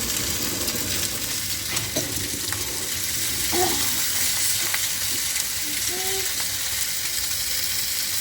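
Fish frying on a tawa over a wood fire: a steady sizzle with a few light clicks.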